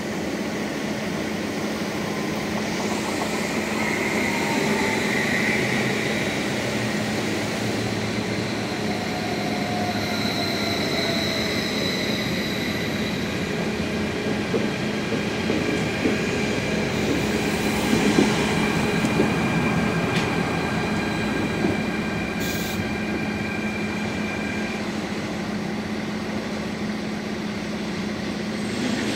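Trains passing through a station: an electric multiple unit rolls by with faint wheel squeal, then a Vossloh DE 18 diesel-electric locomotive hauling empty flat wagons comes past close by. A steady hum runs underneath, and the noise is loudest, with a few knocks, about two thirds of the way through.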